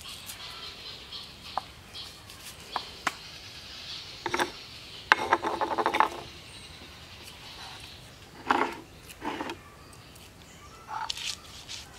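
A stone roller crushing green chillies on a flat grinding stone, with scraping and knocking, mixed with sharp taps of a blade cutting against a wooden block.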